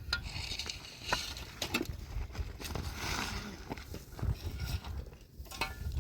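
Irregular knocks and clicks with short rustling noises, over a steady low rumble.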